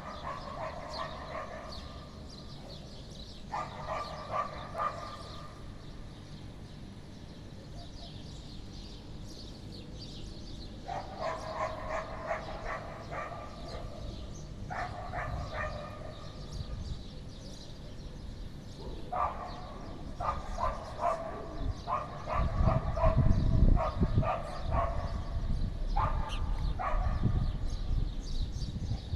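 Dog barking in repeated bouts of quick barks, with pauses of a few seconds between bouts. A low rumble swells up about two-thirds of the way through and is the loudest sound for several seconds.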